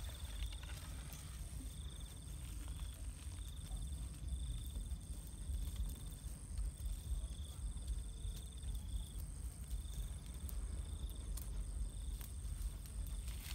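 Crickets trilling in short repeated bursts over a steady high-pitched insect drone, with a low rumble underneath and a few faint clicks.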